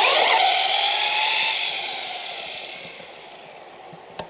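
Traxxas Slash 4x4 VXL RC truck's electric motor and drivetrain whining at speed, the pitch gliding as it passes close by, then fading over about three seconds as it drives away. A single sharp click near the end.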